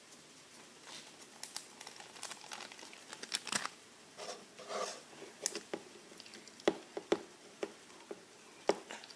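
Slime being stirred in a bowl with a mixing tool: soft sticky squishing and scraping, with sharp taps of the tool against the bowl, the loudest taps in the second half.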